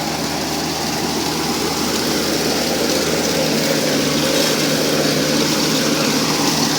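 Kubota R1 301 combine harvester running steadily: a diesel engine's constant drone under a broad machinery hum.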